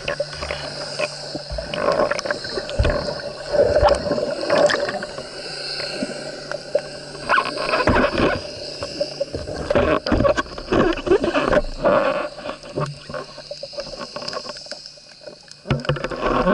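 Muffled underwater water noise, with irregular gurgling and many short knocks and clicks.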